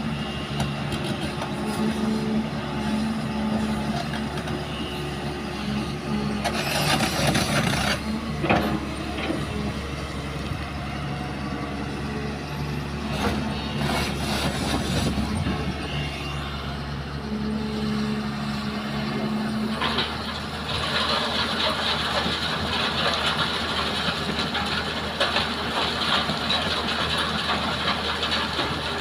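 Hyundai hydraulic excavator's diesel engine running steadily under work, with a loud hiss about seven seconds in, a few knocks, and a steady higher hiss joining about twenty seconds in.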